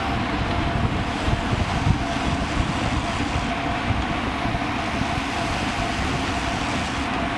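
Steady wind rushing over a bicycle-mounted action camera's microphone at about 40 km/h, an even noise with no breaks.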